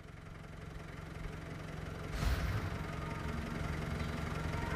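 An engine running steadily, fading in and growing louder, with a brief thump about two seconds in.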